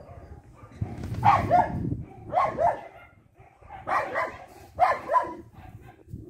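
Dog barking in four quick double barks, each pair about a second or so after the last.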